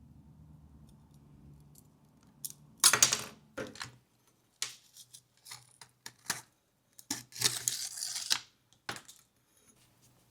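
A run of short scraping and clicking noises, like parts or tools being handled, with the loudest scrapes about three seconds in and again around eight seconds.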